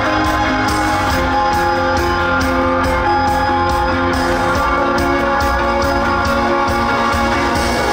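Live band playing an instrumental passage led by guitar, over a steady drum beat.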